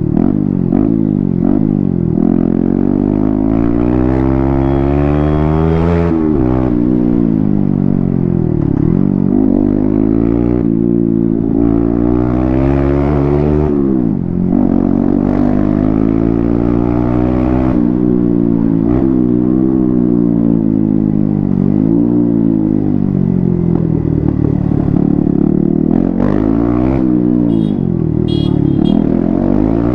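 Yamaha MT-15's 155 cc single-cylinder engine running with its stock exhaust cut off, loud and unmuffled. Its pitch climbs and drops again and again as the throttle is opened and closed.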